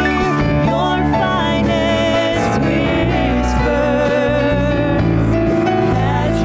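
Live worship band playing a gospel praise song, with keyboard, acoustic guitar, congas and drum kit under a sung vocal line.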